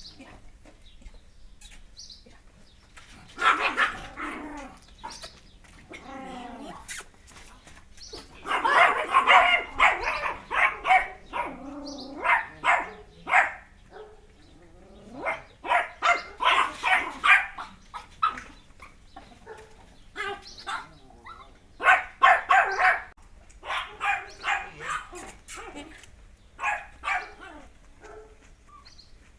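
Yorkshire terrier barking in several bursts of quick, high yaps, with short quiet spells between.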